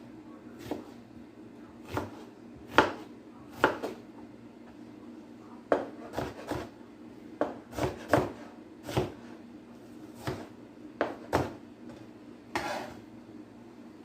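Kitchen knife chopping an onion on a cutting board: sharp, irregular knocks, roughly one a second, some coming in quick pairs.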